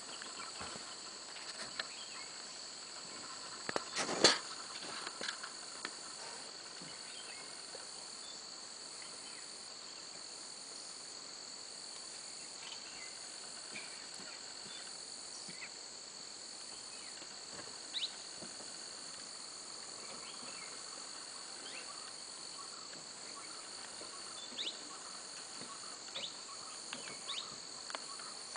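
A steady chorus of insects, with a constant high-pitched shrilling. A single sharp knock about four seconds in, and a few fainter clicks later on.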